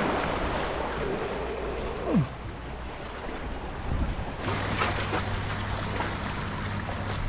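Sea waves washing and wind buffeting the microphone, with a low steady hum joining about four and a half seconds in.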